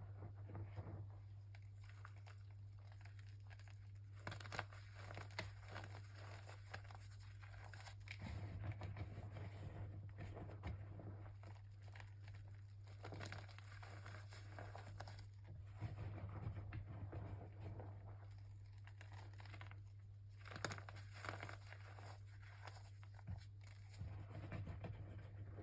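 Sticks of gritty chalk being bitten and crunched, an irregular run of short crunches and crackles, over a steady low hum.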